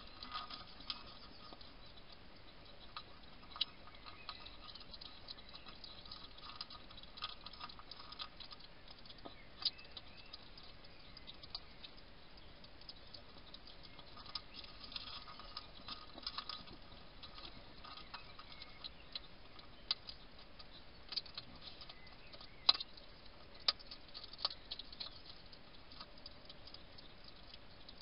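European hedgehog eating dry food from a dish: irregular crunching and chewing clicks, some sharper and louder than others, the loudest a little past two-thirds of the way in.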